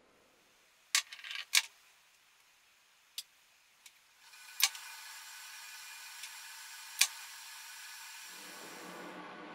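Sharp, scattered clicks and taps of a carving knife working into a wax candle: a quick pair about a second in, a few lighter ticks, then single louder clicks about halfway and near the end. A faint steady hiss comes in a little past the middle.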